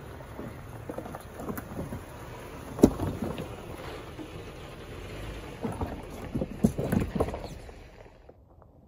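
Toyota Sequoia's off-road tyres crunching and popping over loose rocks and gravel as it crawls past, under a low engine rumble. A sharp rock crack about three seconds in is the loudest, with a quick run of cracks around six to seven seconds; the sound falls away just before the end.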